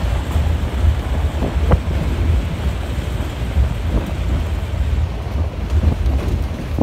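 Wind buffeting the microphone from a moving taxi, over the low rumble of the car driving on a dirt road. A few faint knocks come through, about one and a half seconds in and again around four seconds.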